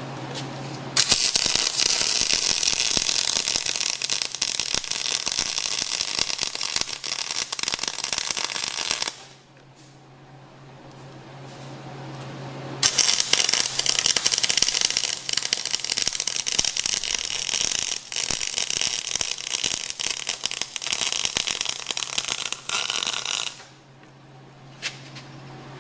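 Lincoln wire-feed welder's arc crackling steadily while welding a steel blade-ball yoke on a Cat D5C dozer: two long beads of about eight and ten seconds, with a pause of about four seconds between them and a brief touch of the arc near the end.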